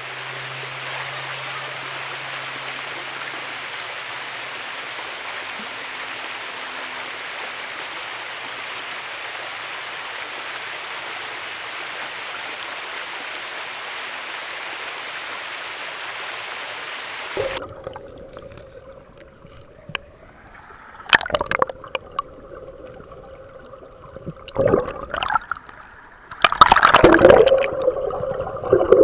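River water flowing with a steady rush. It stops abruptly about two-thirds of the way in, after which a steady hum and a few sudden loud noises follow.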